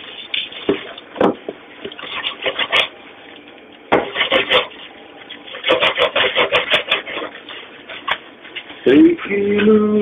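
Irregular knocks, scrapes and rustling of bread loaves being handled and moved about on a work counter, coming in clusters with short quiet gaps. About nine seconds in, a voice starts singing.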